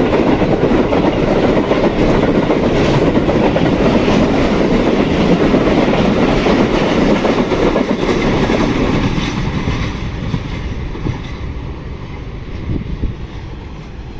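Passenger coaches of the 8 Dn Tezgam Express passing close by at speed, wheels running over the rails. The sound fades as the last coach goes by, about nine seconds in.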